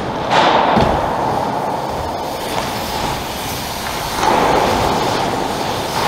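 BMX bike tyres rolling over a concrete skatepark bowl, a steady rumble that swells twice as the rider carves, with a thud of the bike landing a little under a second in.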